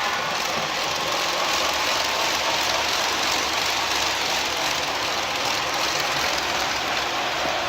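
HO scale Broadway Limited Paragon4 New York Central 4-6-4 Hudson model running at speed: a steady rushing hiss from its onboard steam sound system and wheels on rail.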